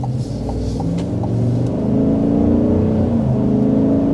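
A 6.2-litre V8 with active exhaust, heard from inside the cabin, accelerating under light throttle and getting louder. Its pitch climbs and twice drops back as the 10-speed automatic shifts up.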